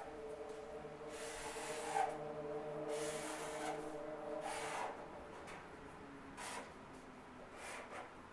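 Felt-tip marker drawing lines on paper: a series of separate scratchy strokes, the longest about a second.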